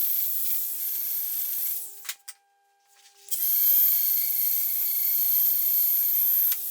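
Electric grinder working on steel, running steadily, cutting out about two seconds in and starting up again about a second later.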